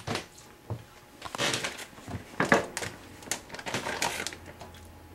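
Plastic freezer bag crinkling and rustling in irregular bursts as seasoned chicken pieces are handled and put into it with the marinade.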